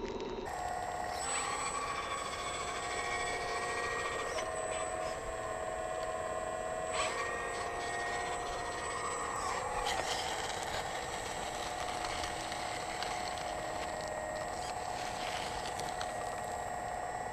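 Hydraulic pump of an RC model Liebherr 946 crawler excavator whining steadily while it digs, its pitch stepping down and back up a few times as the arm and bucket work.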